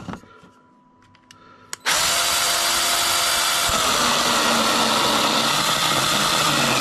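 A knock at the start, then about two seconds in a ValueMax 20V battery-powered mini chainsaw starts abruptly and runs steadily and loudly, its chain cutting into a thick wooden beam.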